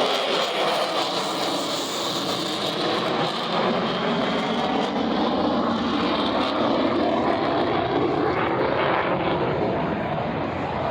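Fighter jet engine noise during a flying display, loud and continuous.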